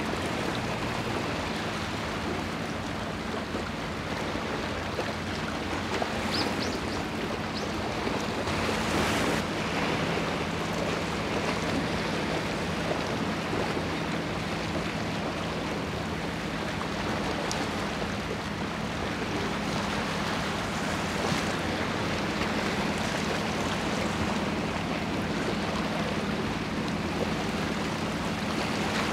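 Steady wash of sea water with wind on the microphone, over a low steady hum.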